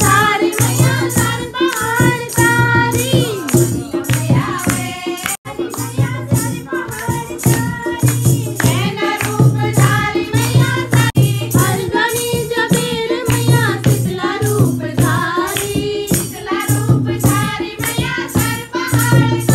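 A devotional bhajan to Mata Rani, sung over a steady percussion beat and a sustained low drone.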